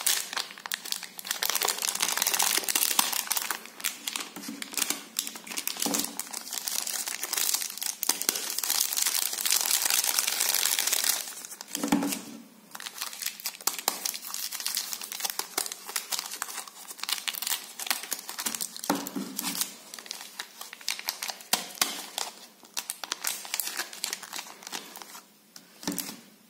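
Plastic chocolate-bar wrappers crinkling as hands fold and handle them, densest through the first ten seconds or so, then in sparser bursts, with a few soft thumps.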